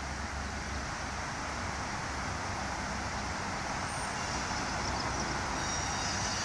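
Steady outdoor background noise, like distant traffic, with no distinct clicks standing out.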